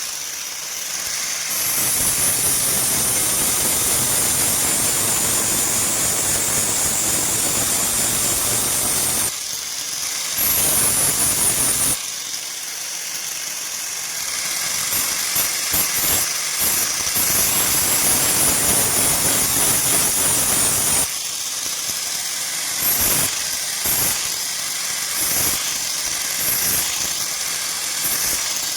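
A steady machine noise with a high whine and hiss, broken into several segments by abrupt cuts. A few short knocks come near the end.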